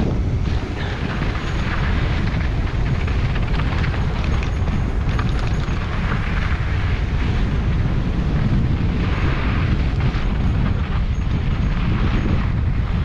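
Wind buffeting the microphone while a mountain bike descends a dirt trail at speed, with the rumble and rough crunch of its knobby tyres rolling over packed dirt and loose grit rising and falling.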